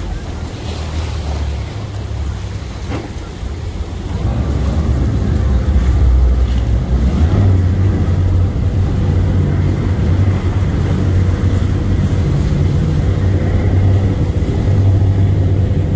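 Speedboat under way: steady engine rumble mixed with rushing water and wind buffeting the microphone, growing louder about four seconds in.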